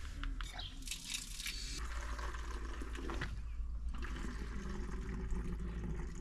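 Water running and splashing into a water bottle as it is filled.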